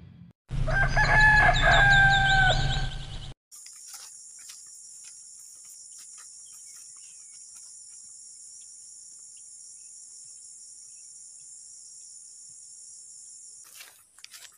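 A rooster crowing once, a loud call of about three seconds that starts half a second in and cuts off suddenly. A steady, faint, high-pitched insect drone follows, with a few light crackles near the end.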